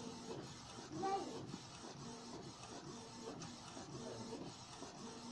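Canon G3111 ink-tank inkjet printer printing, faint: its motor whirs in short, evenly repeated strokes as the print head shuttles across the page, with light clicks.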